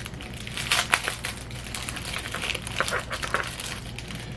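Crinkling and rustling of a small packaged screen-cleaning wipe being handled and opened: irregular crackly ticks and rustles, thickest in the middle.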